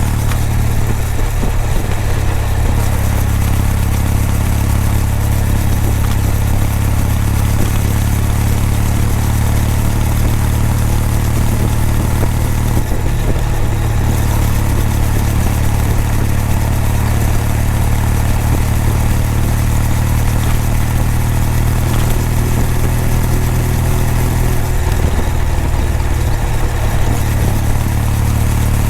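Kawasaki W800's air-cooled parallel-twin engine and exhaust running at a steady cruise while riding, the note holding an even pitch with a few brief changes in throttle along the way.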